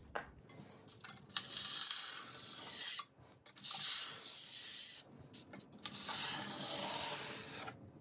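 Snap-off utility knife with a fresh blade drawn through expanded polystyrene foam board along a steel ruler. There are three long cutting strokes of about one and a half seconds each, with short pauses between them.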